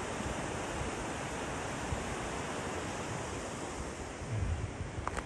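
Steady rush of river water flowing through a rocky gorge, with wind gusting on the microphone.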